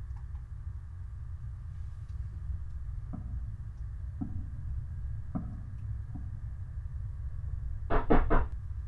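A quick rap of about four knocks near the end, like knocking on a door, the loudest sound, following a few single soft thuds, over a low steady room hum.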